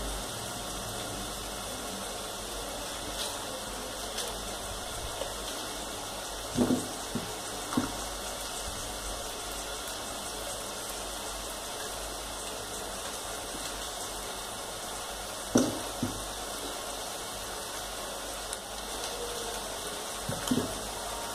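Okra being cut by hand with a small knife over a steel plate: faint clicks and a few short dull knocks as the pods are cut and pieces handled, over a steady background hiss.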